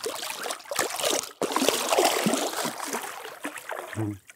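Splashing and sloshing of shallow lake water as common carp are lowered back in by hand and released. The splashing is loudest from about a second and a half in to about three seconds.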